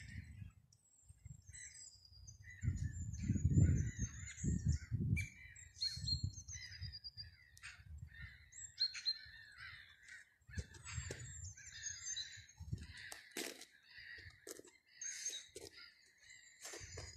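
Wild birds calling and singing: many short chirps, trills and sharp calls overlapping through the clip, with a stretch of low rumbling noise a few seconds in.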